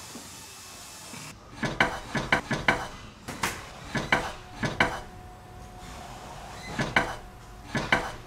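Wooden boards clacking and knocking together: about a dozen sharp strikes in quick clusters of two to five, with short pauses between.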